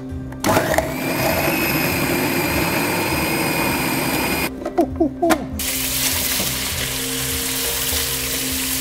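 Small Bosch food processor motor whirring up to speed and running steadily as it grinds chillies, shallots, garlic and ginger into a curry paste, cutting off about four and a half seconds in, followed by a few short pulses. After that, steady sizzling of meat frying in a wok on a gas hob.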